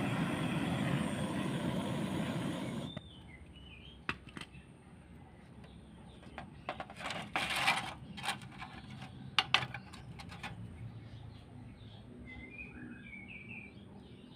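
Butane cartridge blowtorch hissing steadily while heating a sickle's tang red-hot, then shut off abruptly about three seconds in. Scattered clicks and knocks follow as the hot sickle is handled, and a small bird chirps a few times near the end.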